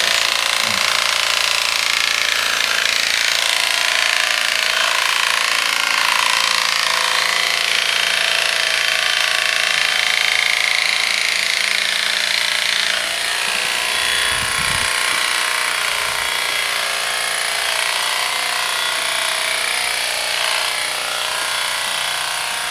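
Corded electric animal hair clippers running steadily while shaving the fur around a hot spot on a sedated dog, with a brief low thump partway through.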